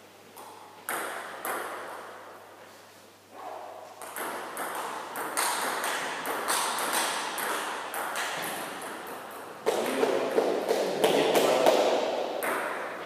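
Table tennis rally: the ball clicking in quick alternation off rubber bats and the table, echoing in a large sports hall. A few single bounces come about a second in, then a fast exchange runs from about four seconds, loudest near the end.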